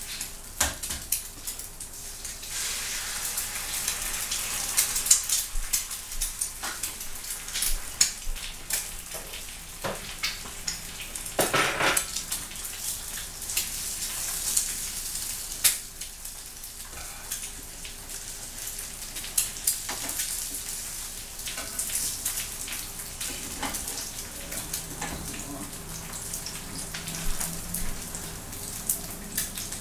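Eggs frying in a skillet on a gas stove, a steady crackling sizzle, with frequent clicks and scrapes of a cooking utensil against the pan and one louder scrape a little before the halfway point.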